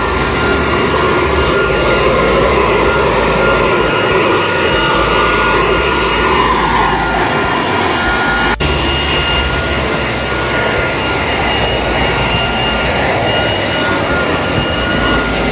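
Ozito electric blower vac running steadily: a high motor whine over rushing air, with a momentary break a little past halfway.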